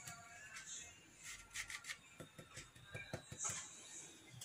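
Faint rustling of flour being shaken through a fine metal mesh sieve, then a run of light taps and clicks about halfway through as the sieve is handled.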